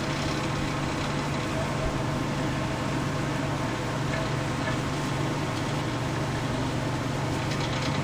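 Comfort Zone CZ121KM 12-inch table fan running steadily: a constant low motor hum under an even rush of air from the blades.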